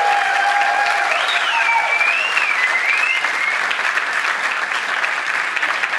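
Audience applauding at the end of a live song, with a few gliding whistles in the first half.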